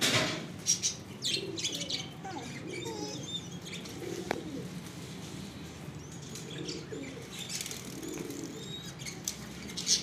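Domestic pigeons cooing over and over, with wings flapping loudly a couple of times in the first second and some bird chirping.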